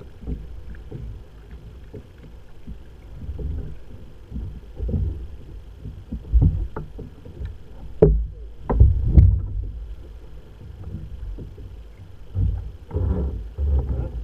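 Water slapping and knocking against a fishing kayak's hull in irregular low thumps, with a few sharper knocks about eight and nine seconds in.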